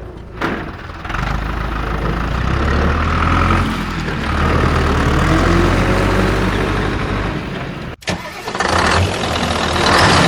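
A vehicle engine starts, then runs at a steady idle. About eight seconds in it cuts out briefly and a louder, noisier engine sound follows.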